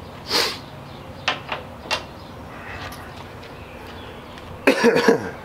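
Tool handling: a rustle and a few light metal clicks as a cordless drill fitted with a 13 mm socket is set on a bolt. Near the end the drill runs in a short burst, snugging the bolt down.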